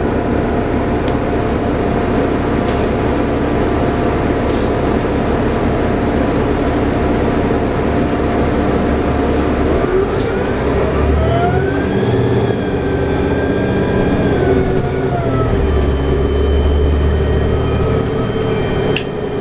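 Cummins ISL9 diesel and Allison B500R automatic transmission of a 2011 New Flyer D60LFR articulated bus, heard from inside the cabin. The engine idles steadily, then about halfway through the bus pulls away: the engine note rises, holds, and drops back as the transmission shifts, with a thin high whine joining it.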